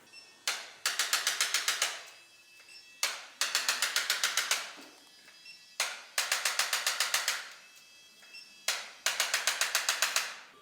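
Rapid mechanical clicking, four times: each burst opens with a single click, then runs about ten clicks a second for just over a second.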